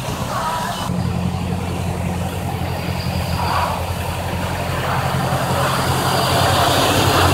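Diesel engine of an MAN Lion's City double-decker bus running steadily with a low hum. It strengthens about a second in and grows a little louder toward the end.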